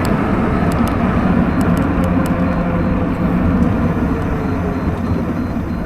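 Steady wind rush over the microphone and tyre noise on wet pavement from a moving e-bike riding in the rain.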